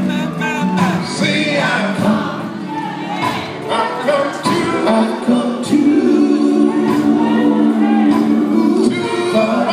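Live gospel quartet singing with a band of electric guitar, bass guitar, keyboard and drums, holding a long chord through the second half.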